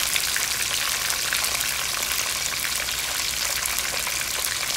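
Whole fish frying in hot oil in a pan: a steady sizzle with fine crackling pops throughout.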